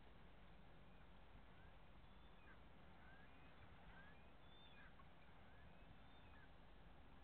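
Faint bird chirps, many short calls scattered through the middle, over a low, steady background hum.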